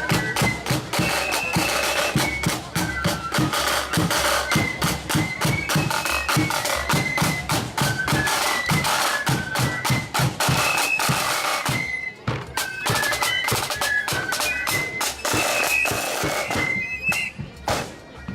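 Marching band playing a tune: a high melody line over dense, rapid drumming. The music drops away briefly about twelve seconds in, then picks up again.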